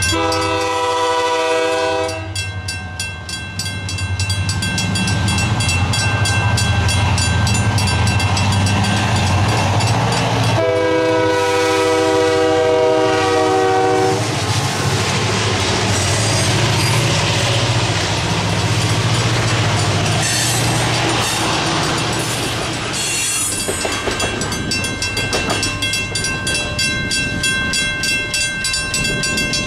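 Crossing signal bells ring steadily while an approaching diesel locomotive sounds its multi-note air horn: a blast that ends about two seconds in, then a longer one from about ten to fourteen seconds. The locomotive's engine and wheels then rumble and clatter through the crossing. The bells keep ringing after the train has passed.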